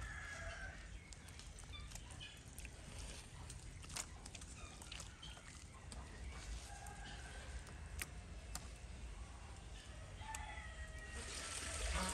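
Faint, scattered clucking of chickens, with a few light clicks. A steady hiss comes in near the end.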